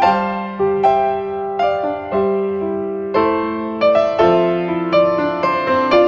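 Background music: a slow, gentle piano melody of single notes and chords, each note struck and left to fade.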